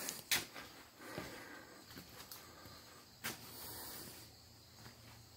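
Faint handling noise and rustling with two soft knocks, one just after the start and one a little past the middle.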